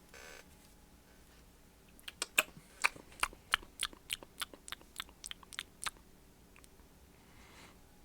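A person's mouth making a run of about fourteen sharp, wet clicks, three or four a second, loudest at first and fading out, with a short breath just before.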